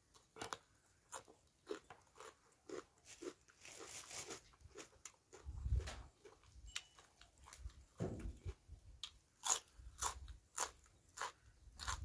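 Close-up chewing and crunching of mouthfuls of green papaya salad and fresh raw greens: many quick, irregular crisp crunches, with a couple of dull low thumps about six and eight seconds in.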